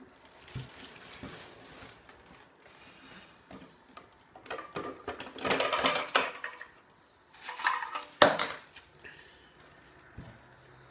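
Packaging and parts of a new coffee machine being handled during unboxing: two spells of rustling and clattering, with a sharp knock about eight seconds in.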